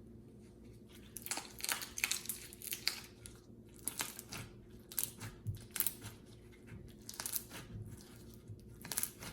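Crunchy slime squished and kneaded by hand, giving irregular crackles and pops that start about a second in.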